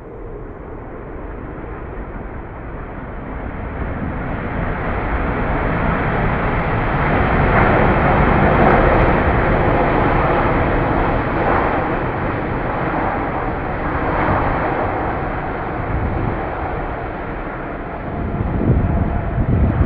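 Airbus A380's Rolls-Royce Trent 900 jet engines roaring as the airliner rolls past on the runway. The roar swells to its loudest about eight seconds in, eases off, and rises again near the end.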